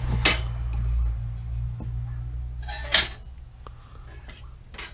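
Hinged sheet-metal doors of an old flip-side toaster clanking as they are swung open and shut: three sharp metal clicks, the loudest about three seconds in.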